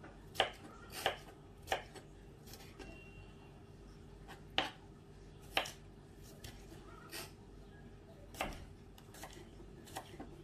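Kitchen knife dicing a cucumber on a wooden cutting board: sharp knocks of the blade striking the board, about ten of them at irregular intervals.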